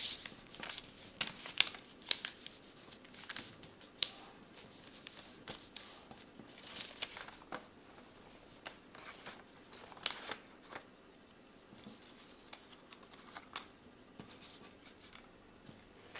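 A sheet of origami paper being folded and creased by hand: short crackles and rustles of the paper, many in the first few seconds, then fewer and further apart.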